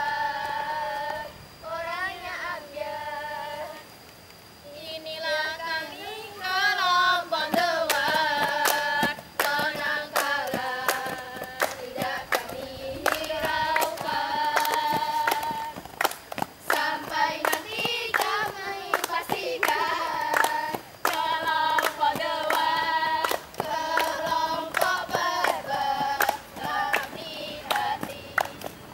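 A group of young voices singing together, with hand claps keeping time. The singing dips briefly about four seconds in, then comes back louder, and the clapping joins about seven seconds in.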